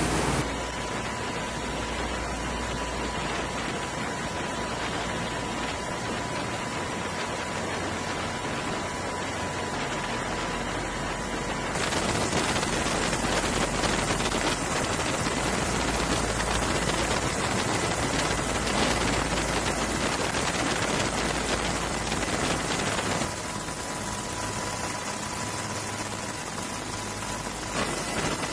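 Steady rushing noise with a faint high steady tone. About twelve seconds in it turns louder and crackly, then drops back to a quieter hiss with the tone near the end.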